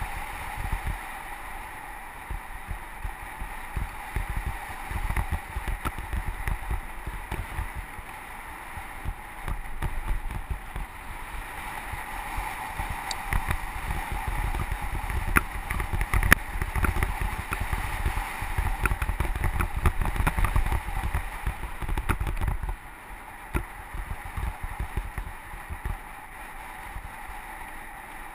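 Mountain bike rolling fast down a dirt trail, heard from a helmet camera: wind buffeting the microphone in a gusty low rumble, over the hiss of tyres on gravel and the rattle of the bike, with sharp clicks through the middle. The rumble eases near the end.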